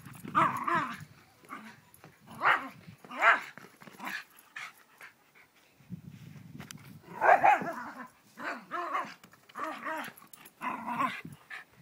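Small dog barking in short, uneven bursts as it goes after a basketball, about eight barks with pauses between them.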